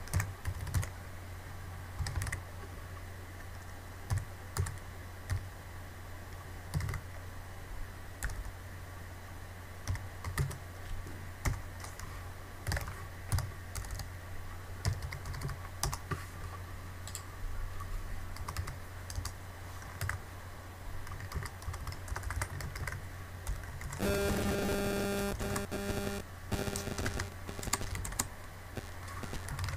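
Typing on a computer keyboard: irregular runs of key clicks over a low steady hum. Near the end a steady pitched hum sounds for about two seconds.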